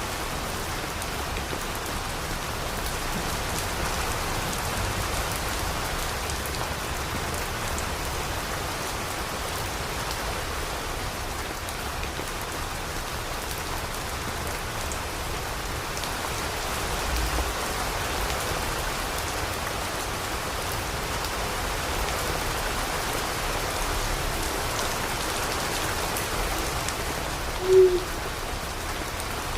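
Steady rain falling, with a single short owl hoot near the end.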